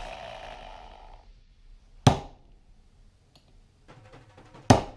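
An electric drill's whir fading out over the first second, then two sharp metal strikes about two and a half seconds apart, the second the louder: a hammer driving a centre punch into a steel bottle top on a wooden block.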